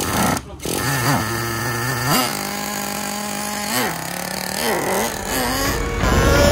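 Traxxas Revo 3.3's small two-stroke nitro engine running at a steady idle. It is blipped up sharply about two seconds in and again near four seconds, then revs more as the truck pulls away near the end. The engine is new and still being run in.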